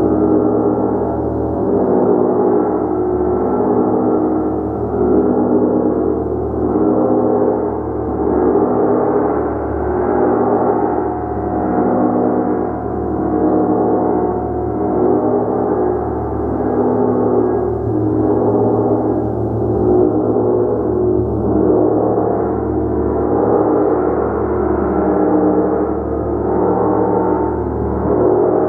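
A gong played continuously with repeated strokes, a dense wash of overlapping sustained tones that swells and eases about every one and a half seconds.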